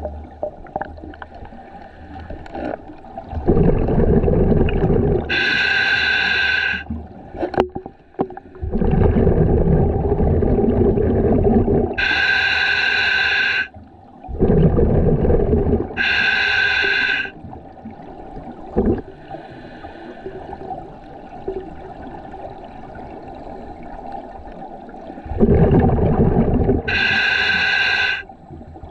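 Scuba diver breathing underwater through a regulator, four breaths in all. Each is a low rush of exhaled bubbles followed by the regulator's higher hiss on the inhale, with a long pause of about eight seconds between the third and fourth breaths.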